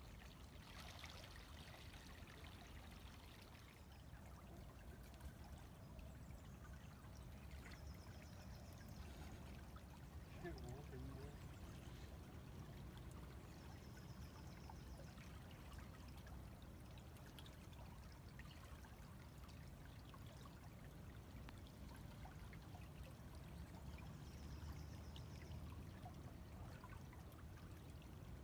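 A river flowing, a faint, steady rush of water. Faint high bird trills sound three times in the background.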